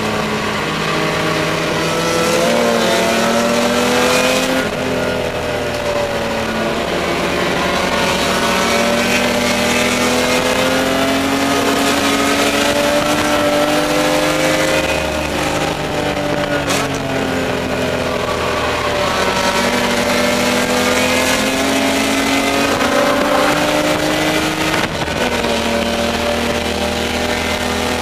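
Spec E30 BMW race car's inline-six engine heard inside the stripped cabin, running hard under racing load. The revs climb and fall over and over, with sharp drops about five, fifteen and twenty-five seconds in, as the driver works the throttle and gears through corners.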